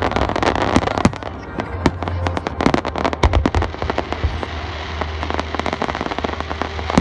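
Aerial fireworks shells bursting in quick succession: a dense run of sharp bangs and cracks over a steady low rumble, thickest in the first second and again around the middle.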